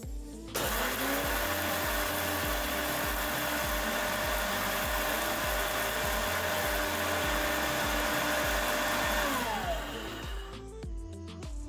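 Orpat 1200-watt mixer grinder switched on with dry rice in its stainless steel jar: the motor spins up within a second and runs steadily while grinding the rice to flour, then winds down about nine and a half seconds in.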